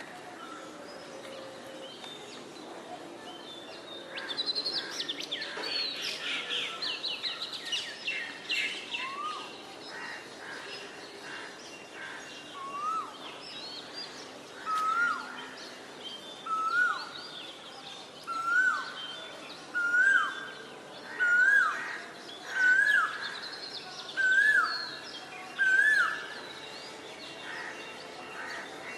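Birds calling: a few seconds of rapid, high chattering, then one bird repeating the same short rising call about every second and a half, getting louder with each call before stopping.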